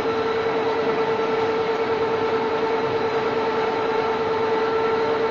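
Metal-working machine tools running in a crankshaft machining hall: a steady mechanical whine over an even noise, unchanging throughout.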